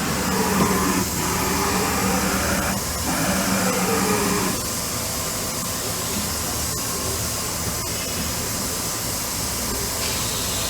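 Kitamura Mycenter-1XiF vertical machining center running: motor whine sliding down and up in pitch for the first four or five seconds, then a steady whirring hiss.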